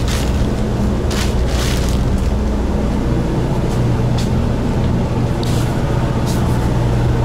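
Passenger boat's engine running steadily as a low hum inside the cabin, with a few brief rustles over it.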